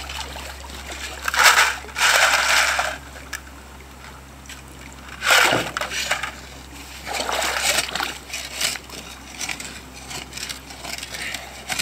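A shovel digging into gravel under shallow creek water, with water splashing as each load is dug. There are three main digs, and smaller clicks of stones follow near the end.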